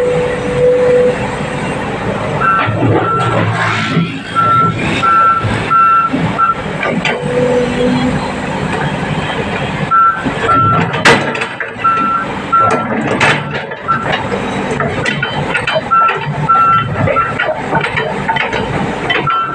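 Excavator's travel alarm beeping about twice a second in runs that stop and start as the machine tracks down off the trailer, over the diesel engine running and clanks of tracks and steel.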